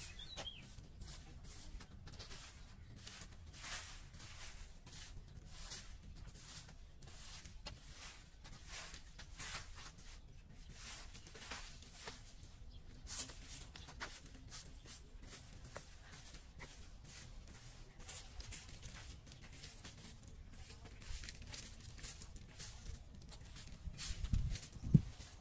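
A plastic broom sweeping dry leaves and grit across concrete paving, a quick, uneven run of scratchy strokes, two or three a second. A single low thump sounds near the end.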